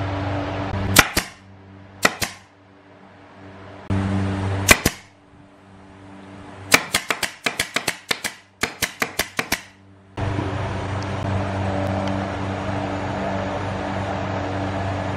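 F30 brad nailer firing brads into plywood: a few single shots, then a quick string of about fifteen shots at roughly five a second. A steady low machine hum is heard between the shots.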